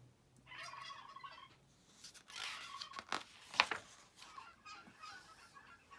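Turkeys gobbling in a few short, faint bursts, with one sharp click near the middle.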